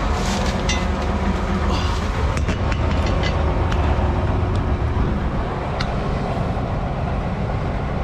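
John Deere combine running steadily during corn harvest: a low, even machine rumble heard from out on the machine rather than inside the cab. A few light clicks and knocks sound over it.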